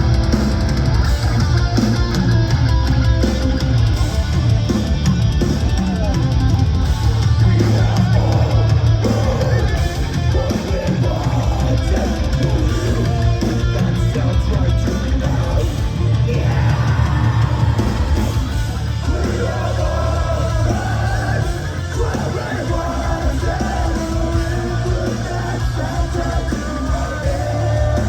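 Metalcore band playing live in a large hall, with heavily distorted guitars, pounding drums and bass, and screamed vocals.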